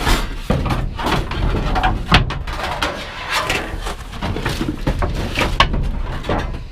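Irregular clanks, knocks and scraping of junk and sheet metal being shifted and pulled about in a dumpster, with a sharper bang about two seconds in.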